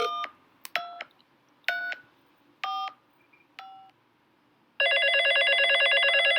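Telephone keypad tones: five short dialing beeps about a second apart, followed near the end by a steady, pulsing telephone ringing tone lasting about two seconds.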